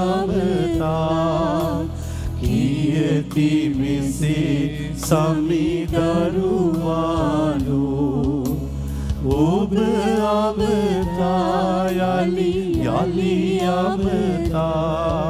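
A Sinhala hymn sung over sustained instrumental accompaniment, the melody line gliding between held notes.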